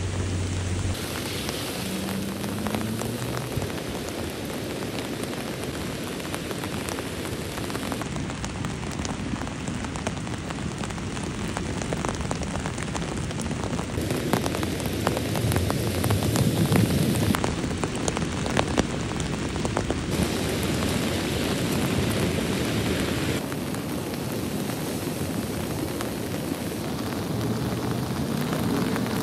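Heavy rain falling steadily, with a louder low rush of running floodwater a little past the middle.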